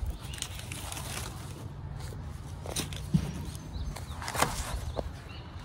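Rustling with a few light knocks and clicks as a pencil and writing materials are picked up and handled, over a low steady rumble.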